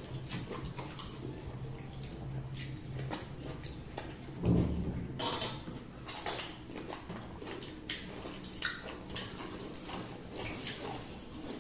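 Close-up eating sounds of rice and chicken curry being eaten by hand from metal plates: wet chewing and lip smacks with scattered small clicks. A dull thump about four and a half seconds in is the loudest sound.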